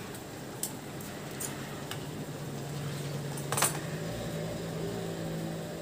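Sewing machine being worked by hand: a few light clicks as the fabric is set under the needle, the sharpest about three and a half seconds in, and a low steady hum from about two seconds in.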